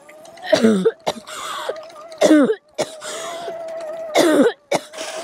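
A young rider coughing and clearing his throat three times, about two seconds apart, his neck hurt after a rope caught round it and left him struggling to breathe. Under it runs the steady whine of the Oset 24R electric trials bike's motor.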